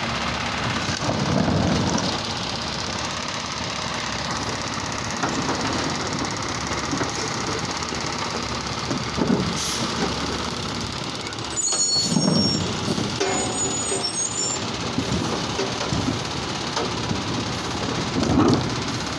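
Automated side-loader garbage truck running as its hydraulic arm works the carts. The engine surges up several times, and there are brief high squeals about twelve seconds in.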